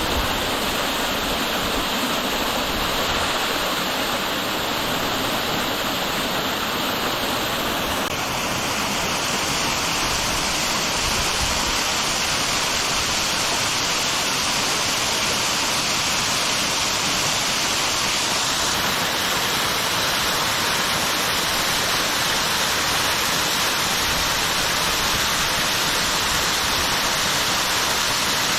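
Waterfall: a steady rush of falling water. Its tone brightens abruptly about eight seconds in and shifts again about nineteen seconds in.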